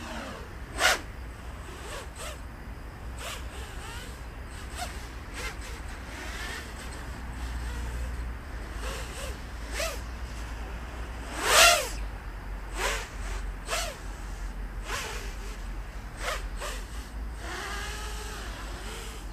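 Diatone GT-M515 5-inch racing quadcopter with three-blade propellers flying, its motors and props giving a series of brief, sharp whooshes as it punches the throttle and passes. The loudest come about a second in and around twelve seconds in, over a steady low rumble.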